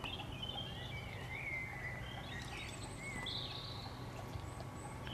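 Small birds chirping and whistling in short, scattered calls over a steady low background hum.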